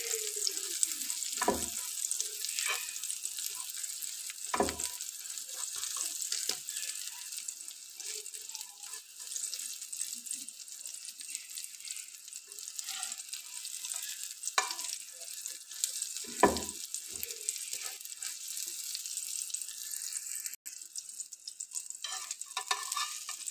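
Egg omelette frying in oil on a tawa, a steady sizzle as its second side cooks. A few knocks of a metal spatula against the pan break through it, the loudest about two thirds of the way in.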